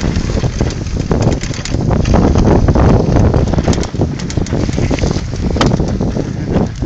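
Strong wind buffeting the microphone in a heavy, fluttering rumble, with scattered sharp clicks and ticks throughout.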